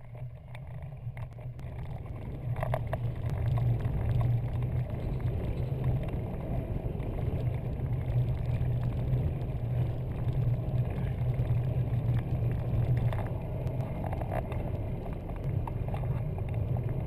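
Steady low rumble of a recumbent trike rolling along a paved trail, picked up through a handlebar-mounted GoPro's casing. It builds over the first few seconds and carries a few faint clicks and rattles.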